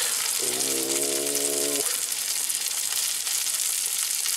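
Fish fillets frying in butter in a cast-iron skillet on high heat, a steady sizzle as the skin crisps. A brief low, steady hum sounds for about a second and a half near the start.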